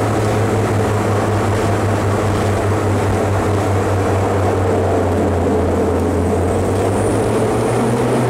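Small aircraft's engines running with a steady low drone, heard from inside the cockpit as the plane rolls along the runway after landing.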